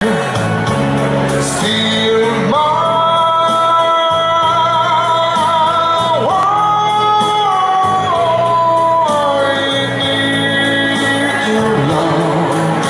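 A man singing into a microphone to accordion music, holding long notes with vibrato over a steady, repeating bass line.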